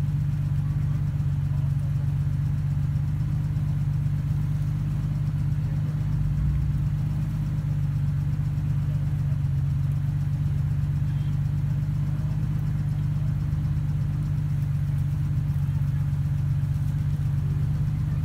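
Jeep engine running steadily at low idle: a low, even hum that holds the same pitch throughout, with no revving.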